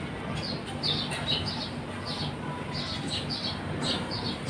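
Small birds chirping, short falling chirps repeated two or three times a second, over a steady low hum.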